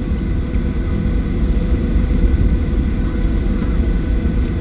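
Cabin noise of a Boeing 737-800 taxiing after landing: a steady low rumble from its CFM56 engines at idle, with faint steady whining tones above it.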